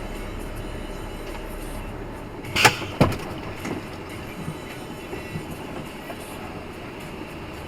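Heavy vehicle engine running steadily, with two sharp loud knocks about two and a half and three seconds in, then a few lighter knocks.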